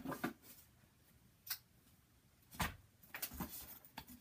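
Scattered light clicks and knocks of makeup brushes and containers being picked up and set down while someone rummages for a brush, about five separate knocks with the loudest near the middle.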